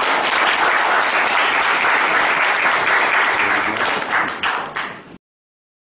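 Audience applauding, thinning out near the end, then the sound cuts off suddenly about five seconds in.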